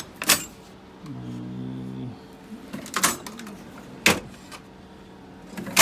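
Four sharp knocks from objects being handled, spaced a second or two apart, the loudest near the end, with a brief steady hum about a second in.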